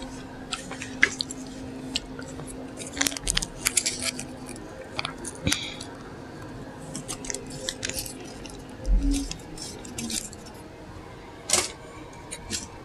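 Close-miked crinkling, rustling and small clicks of a takeout burger and its wrapper being handled, in irregular clusters, with a soft thump about nine seconds in and a sharp click a couple of seconds later.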